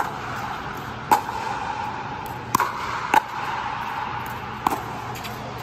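A pickleball rally: the hollow plastic ball is struck by paddles, giving about five sharp pocks at uneven gaps of roughly a second.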